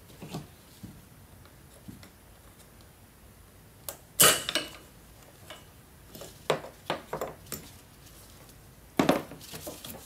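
Hand tools and metal fittings clinking and clanking in a car's engine bay as tubes around the intake manifold are undone: scattered sharp metallic knocks, the loudest about four seconds in, a quick run of them a little past halfway and another near the end.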